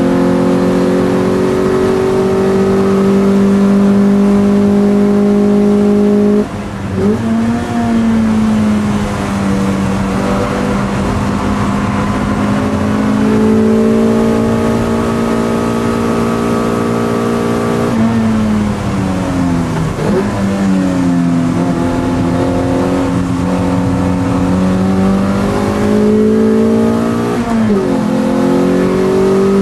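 Toyota MR2 race car's four-cylinder engine heard from inside the cockpit, held at high revs under load. The revs fall sharply about six seconds in, then several times more with quick dips and climbs, before building again.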